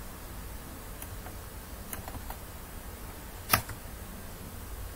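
A few light clicks at a computer, then one louder, sharper click about three and a half seconds in, over a steady low background hum.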